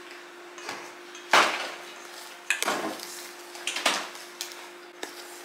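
Kitchen clatter of a metal spoon knocking and scraping in a stainless steel mixing bowl, a handful of sharp knocks with the loudest about a second and a half in. A microwave oven hums steadily underneath.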